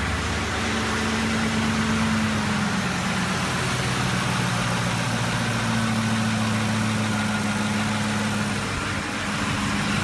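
2007 Ford F-150 pickup's replacement engine idling steadily, just after start-up on fresh oil.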